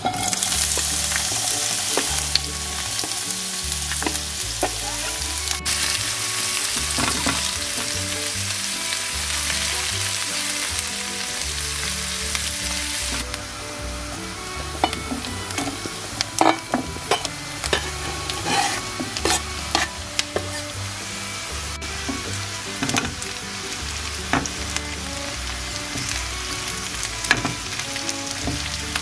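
Sliced onions hitting hot sunflower oil in a frying pan and sizzling at once. About halfway through, sliced carrots and red pepper go in; the vegetables keep sizzling while a silicone spatula scrapes and clicks against the pan as they are stirred.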